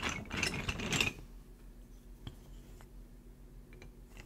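Wooden KEVA planks scraping and rubbing against each other as a plank is slid into place on a plank stack, a rough scratchy sound for about the first second, followed by a few light wooden clicks as planks are set down.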